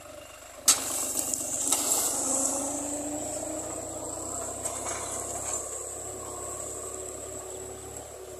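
Small tractor engine working under load as it pulls a disc ridger through the soil, rising in pitch as it moves off and then slowly fading as it draws away. A sharp knock comes just under a second in, and a steady high-pitched insect buzz runs underneath.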